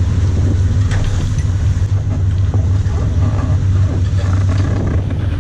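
Boat engine running with a steady low drone, under a wash of water along the hull.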